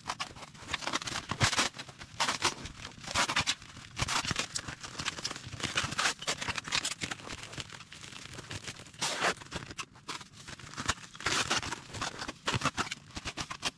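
Irregular rustling and scraping in short scratchy bursts, with a quieter stretch a little past the middle.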